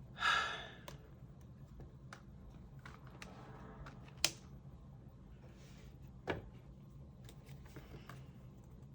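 Tarot cards being handled on a table: a short rustle of cards right at the start, then a few light taps and clicks, the sharpest about four and six seconds in, over a low steady room hum.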